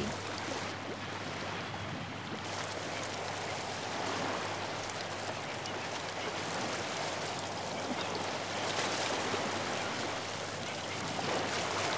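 Steady rushing ambient noise, swelling slightly about four and nine seconds in.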